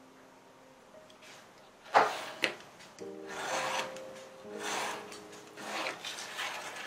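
Craft knife drawn along a steel ruler, cutting through cardboard: two sharp clicks about two seconds in, then a run of three or four scratchy cutting strokes.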